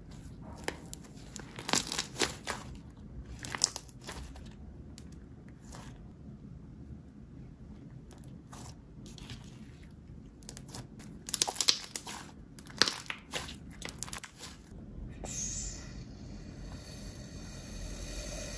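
Fluffy slime being squeezed and stretched by hand, giving sharp crackling clicks and pops, in clusters about two seconds in and again around eleven to thirteen seconds in. Over the last few seconds a steadier hissing, rustling sound takes over.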